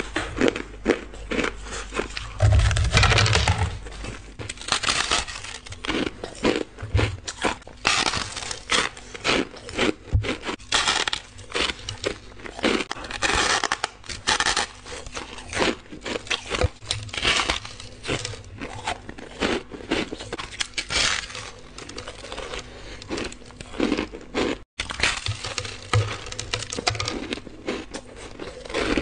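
Close-up crunching of hard ice being bitten and chewed: bites into slabs of frozen coloured ice, with dense, irregular crackling and cracking as the ice breaks between the teeth.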